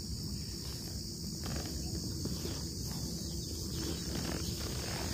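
Steady, unbroken high-pitched drone of crickets, over a low rumble.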